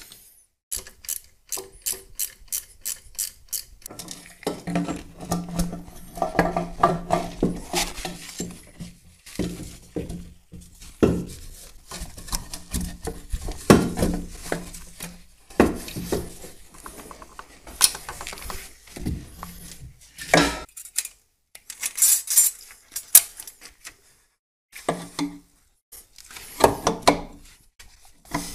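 Metal parts and hand tools clinking and knocking as a turbocharger and exhaust downpipe are fitted, with a fast run of clicks in the first few seconds and a low steady hum under the middle stretch.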